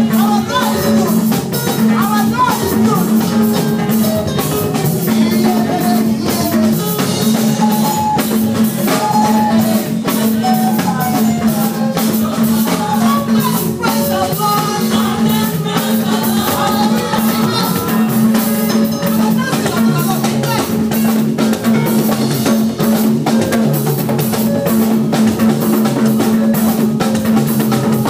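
Live gospel praise-and-worship music: a woman singing lead with backing singers over a drum kit.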